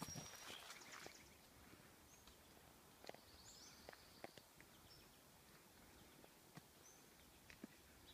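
Near silence in a forest: faint outdoor ambience with a few brief high bird chirps and scattered soft ticks.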